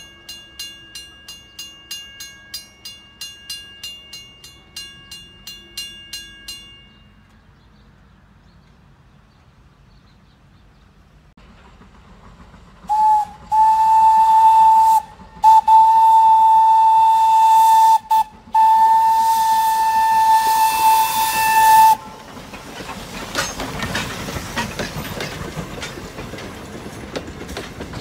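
Railroad crossing bell ringing about two strokes a second, stopping about seven seconds in. After a lull, a steam locomotive whistle blows several long blasts for the crossing, the loudest sound here. The Thomas the Tank Engine steam locomotive and its cars then roll over the crossing with wheels clattering on the rails.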